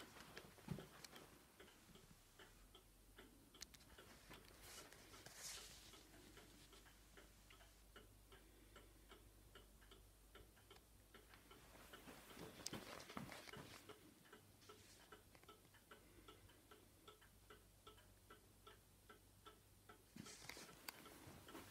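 Georgian bracket clock's pendulum movement ticking, quick and even, with a few louder knocks and rustles among the ticks.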